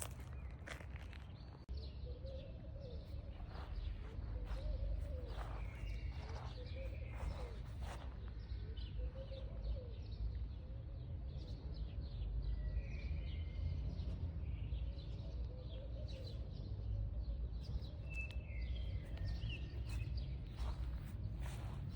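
Outdoor ambience: a steady low rumble with many short, repeated bird chirps and a few scattered clicks.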